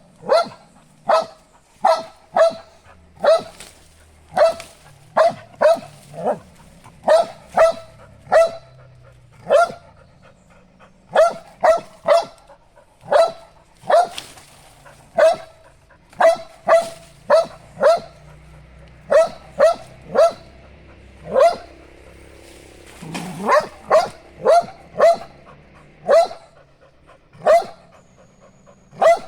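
A dog barking over and over at a cat it has found: short, sharp barks, one to two a second, in runs with brief pauses.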